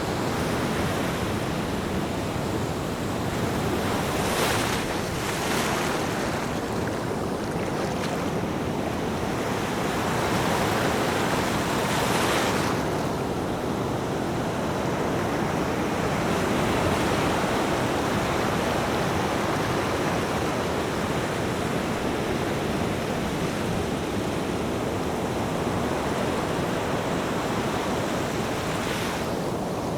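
Ocean surf: a continuous wash of waves, with several waves breaking in louder surges, the strongest about twelve seconds in.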